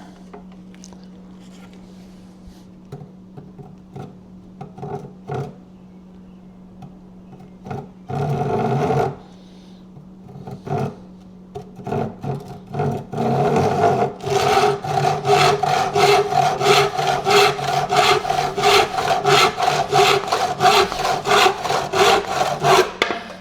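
Hand saw cutting a wooden stake: a few light knocks and one short scrape about eight seconds in, then a steady run of quick back-and-forth saw strokes, about three a second, that stops near the end.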